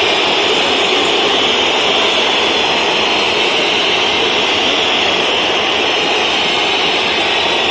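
Stadium crowd of home fans whistling en masse, a loud, steady, shrill wall of whistles jeering the opposing penalty taker, with the crowd's general din beneath it.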